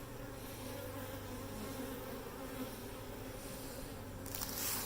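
Honeybee colony buzzing as a steady hum around an opened hive. There is a brief hiss near the end.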